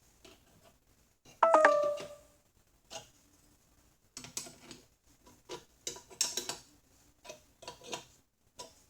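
Small steel parts clinking and tapping as nuts and spacers are handled and fitted onto the vise clamps. One ringing metallic clink comes about one and a half seconds in, followed by a run of lighter clicks and taps.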